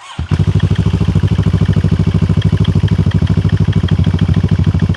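CFMoto 650GT's parallel-twin engine started up, catching almost at once and settling into a loud, steady idle with a fast, even exhaust beat from its side-slung stock exhaust.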